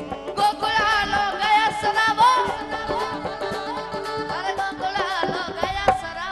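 A boy's high voice singing a devotional folk bhajan through a microphone and PA, entering about half a second in with a long ornamented, wavering line, over tabla and other accompaniment.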